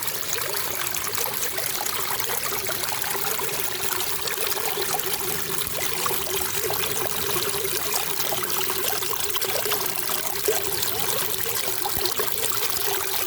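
Running water trickling steadily, without a break, with a wavering low tone running through the splashing.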